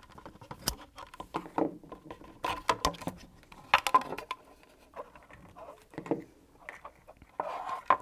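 Light clicks and scrapes of small plastic wiring plugs being prised apart with a small flat-blade screwdriver and handled, at irregular moments.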